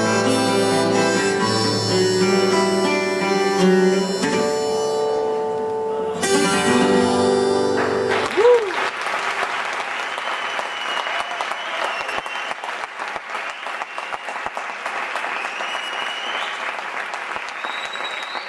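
Live band music with guitar and harmonica playing the song's final bars, ending with a last note about eight seconds in, then the audience applauding.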